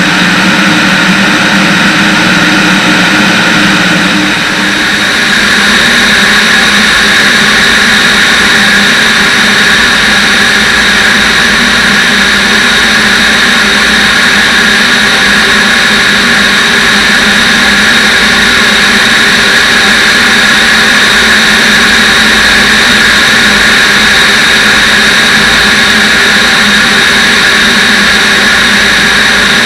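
Van's RV-10 piston engine and propeller running steadily in cruise flight, a loud drone mixed with wind rush on an externally mounted camera. About four seconds in, the loudness dips briefly and the drone settles into a slightly different tone.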